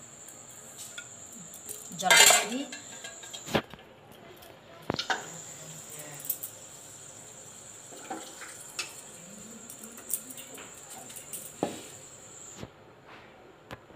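Steel bowl and aluminium pressure cooker clinking and clattering as chickpeas are tipped in and the pots handled, loudest about two seconds in, with scattered clicks after. A steady high-pitched whine runs behind, dropping out briefly around four seconds in and stopping near the end.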